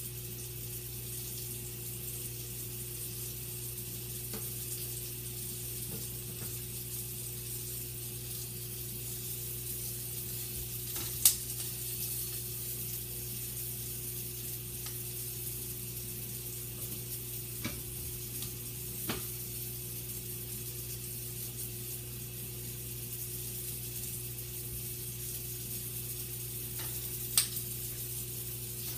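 Sausage sizzling in a frying pan, a steady hiss, with a few sharp clicks of a spatula against the pan, the loudest about eleven seconds in and near the end. A steady low hum runs underneath.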